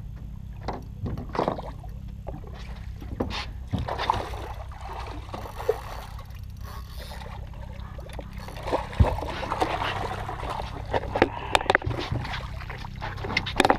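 A hooked redfish splashing at the surface beside a boat and being scooped into a landing net, water splashing with several sharp knocks, the loudest about nine seconds in and a cluster a little after eleven seconds, over a steady low hum.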